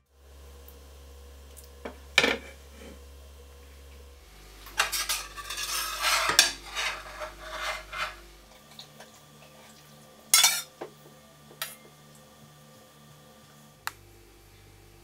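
Metal spoon stirring and clinking against the inside of a stainless steel pot of warm agar jelly liquid. A single clink comes about two seconds in, then a busy run of scraping clinks in the middle, then a few sharp single clinks.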